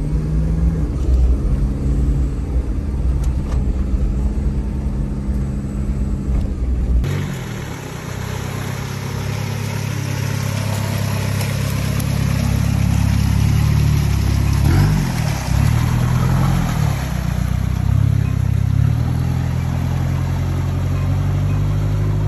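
Diesel engine of a 1990s Toyota Land Cruiser Prado running while driving. About seven seconds in the sound changes to a Prado wading through a muddy, water-filled trail, its engine pulling with water splashing, and the revs rise and fall near the middle.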